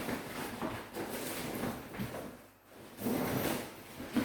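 Rummaging through household things in search of a set of screwdrivers: irregular rustling and handling knocks, a brief pause, then louder rustling about three seconds in and a sharp click near the end.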